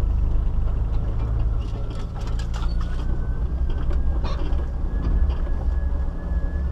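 Four-wheel-drive vehicle crawling along a rough forest dirt track: the engine runs low and steady, with scattered knocks and rattles as the wheels go over bumps.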